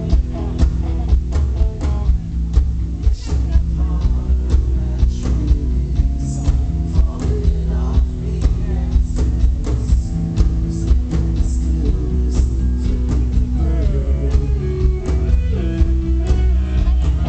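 Live rock band playing: electric guitar over bass and a steady drum beat, with guitar notes bending in pitch near the end.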